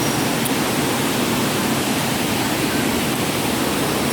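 Waterfall rushing: a steady roar of falling water with no breaks.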